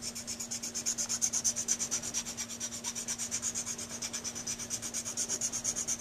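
A coarse 00-cut Grobet Swiss file rasping back and forth in quick, even strokes, about five a second, over the hardened acrylic overcoat on a metal Dukoff saxophone mouthpiece tip. The strokes are roughing the freshly set acrylic into shape and taking down its high spots.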